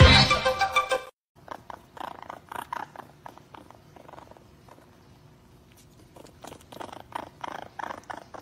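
A loud music track ends abruptly about a second in. Then a baby raccoon cupped in a person's hands makes soft, short chittering calls in irregular clusters, busier near the end.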